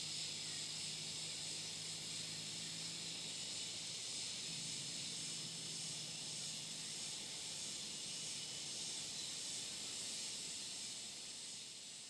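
A steady high hiss, with a faint low hum underneath that stops about seven seconds in; the hiss fades near the end.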